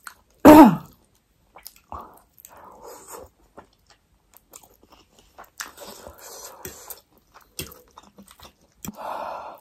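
Close-miked eating: slurping spicy ramen noodles and chewing, with soft wet mouth clicks and smacks. A short loud voiced sound falling in pitch comes about half a second in.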